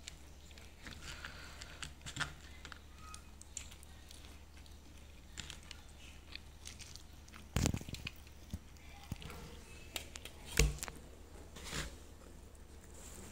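Close-miked eating sounds: fingers picking rice and grilled chicken off the bone in a plastic takeaway tray, with chewing and many small clicks and taps on the plastic. Two sharper knocks stand out, a little past halfway and near three-quarters of the way through.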